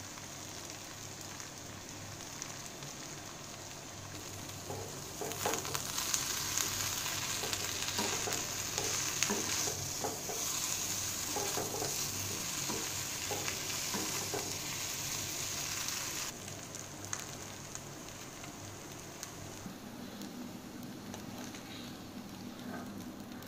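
Spiced taro root pieces frying in oil in a pan, a steady sizzle with a metal slotted spatula stirring and scraping through them. The sizzle grows louder about five seconds in, with scattered clicks of the spatula, and drops off sharply past the middle.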